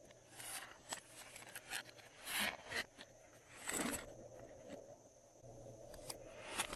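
Glossy slime being squeezed and stretched by hand: irregular sticky squishes with small clicking pops, the loudest a little before the middle.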